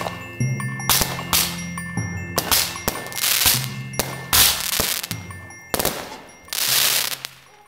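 Fireworks going off in quick succession: repeated sharp bangs, each trailed by a brief crackling hiss, about one or two a second, fading out near the end.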